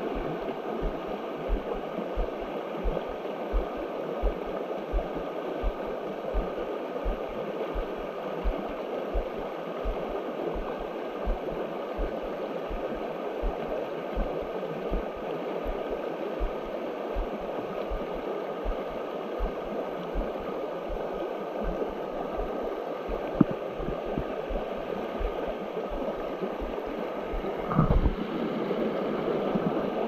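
Creek water running steadily, under a regular series of low thumps about one and a half a second, with a louder knock near the end.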